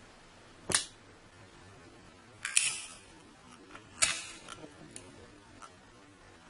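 Zippo lighter's hinged metal lid clicking open and snapping shut as the lighter is flipped in the hand: sharp clicks about a second in, about two and a half seconds in (a quick double), and about four seconds in, then a couple of fainter ticks.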